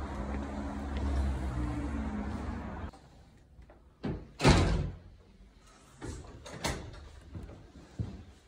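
Low traffic rumble that cuts off abruptly about three seconds in, then a door shutting with a loud thud a little over a second later, followed by a few lighter knocks.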